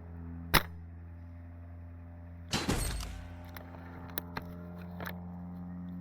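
A single sharp shot from an SSG96 A1 spring-powered bolt-action airsoft rifle about half a second in. About two seconds later comes a short clatter and then a few light clicks, over a steady low hum.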